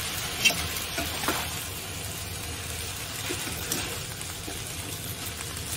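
Rice noodles and toppings sizzling gently in a nonstick frying pan over low heat as they are tossed with chopsticks, with a few light clicks of the chopsticks against the pan.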